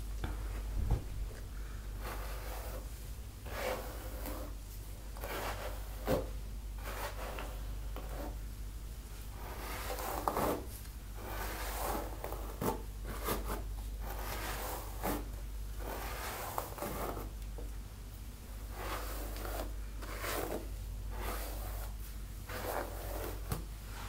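Wooden hairbrush drawn through long wet hair in a string of rustling brushing strokes, roughly one a second, with a few sharper clicks.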